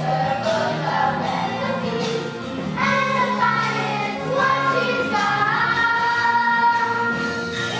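A children's chorus singing a song over instrumental backing music, holding long notes in the second half.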